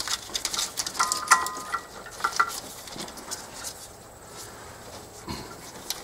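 Tools and small hard objects clattering and clinking as they are rummaged through, with a brief squeak about a second in. It thins out to a few scattered faint clicks after about two and a half seconds.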